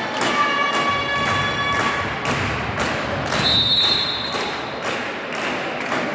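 Drum beats, about two a second, echoing in a sports hall, with short high squeaks over the first couple of seconds.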